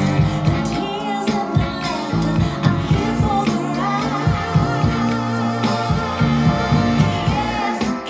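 A song with singing and a bass line, played through TEAC bookshelf speakers and a floor-standing subwoofer driven by a ZK-MT21 2.1-channel class-D amplifier module under sound test.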